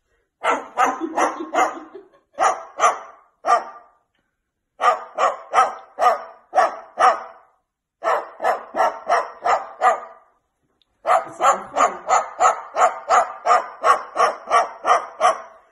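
White cockatoo mimicking a dog's barking. It gives quick runs of short barks, about three a second, with brief pauses between the runs.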